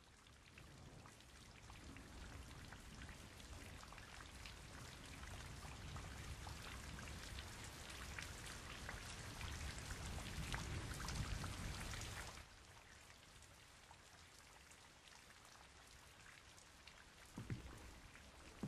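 Rain falling: a dense patter of drops that fades in and grows louder, then drops suddenly to quieter, duller rain, as heard from inside a room, about twelve seconds in. Near the end come two brief low thumps.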